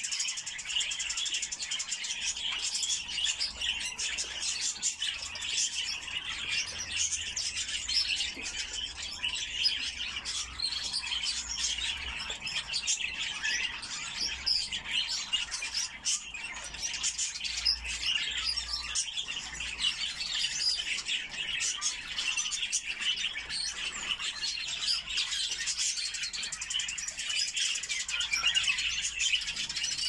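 Parrots chirping and twittering without pause, a dense run of short, high calls.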